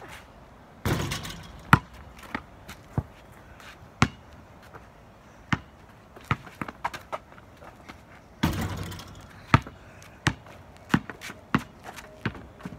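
Basketball bouncing on a concrete driveway: single sharp bounces at irregular intervals. Twice, about a second in and again about eight and a half seconds in, the ball hits the hoop's rim and backboard with a longer rattling crash.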